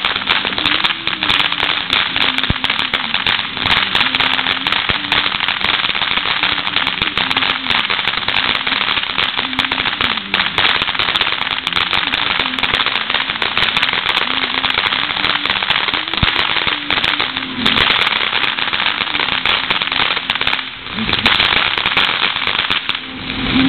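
Ground fountain firework crackling: a dense, continuous stream of small sharp pops over a loud hissing spray.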